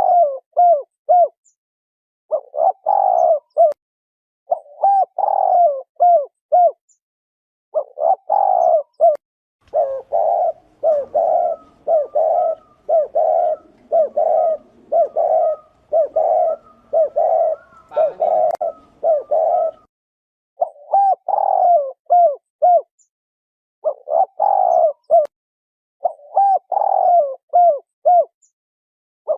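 Spotted dove cooing: repeated short phrases of gliding coo notes, one about every two seconds. Through the middle the phrases come faster, about one a second, over a faint background hiss.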